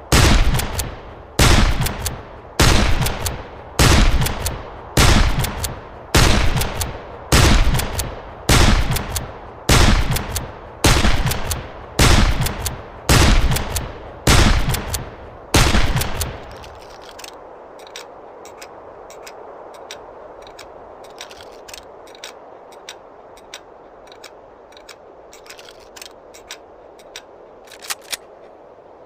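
1860 Henry lever-action rifle firing a steady string of about fifteen shots, roughly one a second, each with a trailing echo. After that come a run of quiet metallic clicks and clacks, the sound of the rifle being handled and reloaded.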